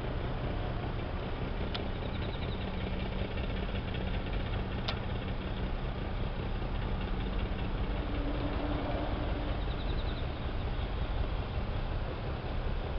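A Daihatsu Hijet kei truck's engine idling steadily with a low rumble, with two light clicks.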